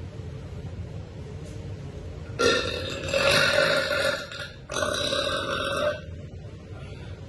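A woman burping: one long, loud burp about two and a half seconds in, then straight after it a second, shorter one.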